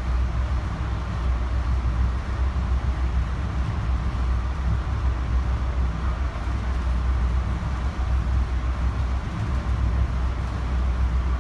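Steady low rumble and rolling noise of an Amtrak Cascades passenger train running along the track, heard from inside the coach.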